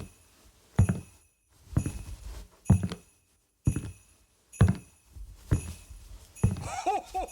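Slow, heavy thumping steps, about one a second, each with sleigh bells jingling: a sound-effect of Santa or his reindeer walking on the roof. Near the end a short pitched, wavering call starts over the steps.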